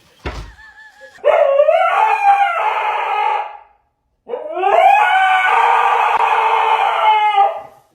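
Dog howling: two long howls, each rising at the start and then held for a few seconds.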